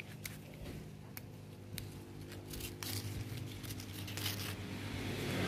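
Bean pods being snapped off the vine by hand, a run of small sharp snaps and leafy crinkling, over a steady low hum that grows louder near the end.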